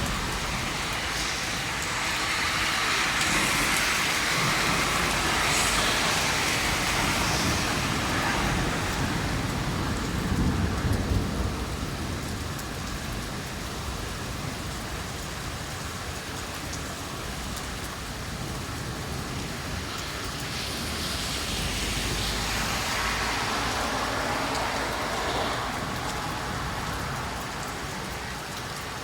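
Steady heavy rain falling and splashing on hard surfaces, swelling and easing, with a low rumble of thunder about ten seconds in.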